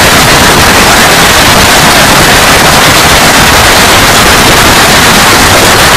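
Heavy hail coming down in a loud, unbroken clatter of countless hailstone impacts, pelting the pool and paving.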